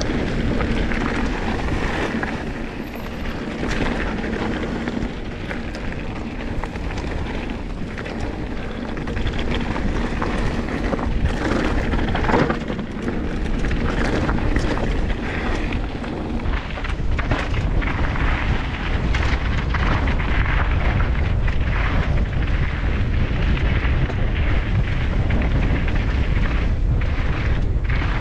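Wind buffeting an action camera's microphone while a mountain bike rolls fast over a gravel and dirt trail. Tyres rumble steadily, and the chain and frame clatter at each bump.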